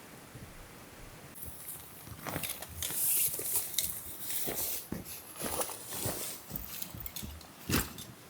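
Irregular rustling and crunching with sharp clicks, starting about a second and a half in, with a louder click near the end.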